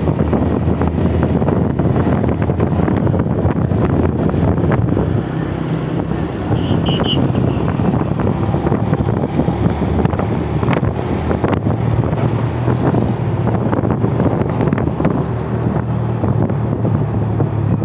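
Motorcycle engine running while riding, with wind rushing over the microphone.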